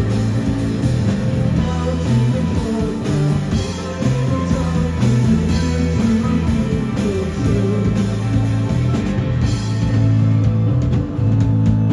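A live rock band playing loud: electric guitars, bass guitar and drum kit.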